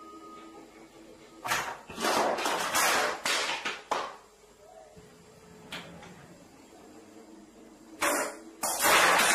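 A series of loud knocks and bangs in two clusters: one starting about a second and a half in and lasting a couple of seconds, another starting near the end.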